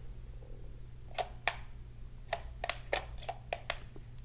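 Plastic clicks from a toy quadcopter's handheld transmitter, about nine sharp, irregular clicks as its sticks and buttons are worked to recalibrate the drone. A faint steady low hum lies underneath.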